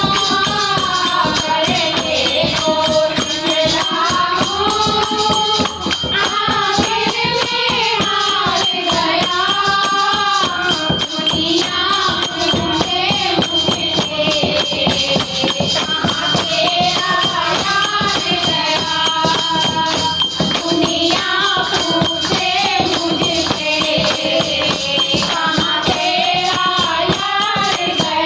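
Women singing a Hindu devotional bhajan to Shyam (Krishna) as a group, a lead voice amplified through a microphone, over a dholak drum beating a steady rhythm with jingling hand percussion.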